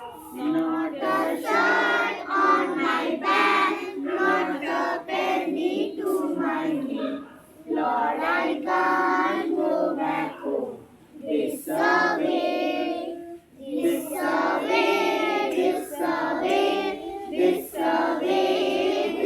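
A group of children singing together in unison, in phrases with brief pauses between them, with no instruments prominent.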